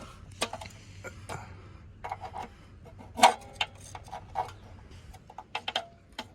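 Scattered light clicks and taps at irregular intervals, with one sharper knock about three seconds in and a quick cluster near the end, over a faint steady low hum: handling noises around the flywheel area underneath the vehicle.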